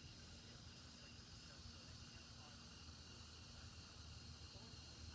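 Faint evening insect chorus: a high, steady pulsing chirp repeating a couple of times a second over a low steady hum.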